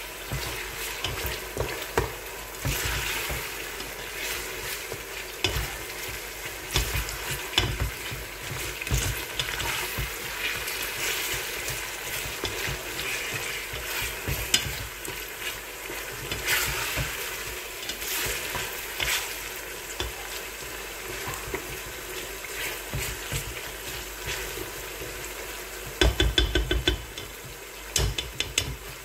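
Beef and onions sizzling in oil in an aluminium pressure-cooker pot while being stir-fried at the browning (bhuna) stage, with a plastic spatula scraping and clicking against the pot. A quick run of sharp knocks comes near the end.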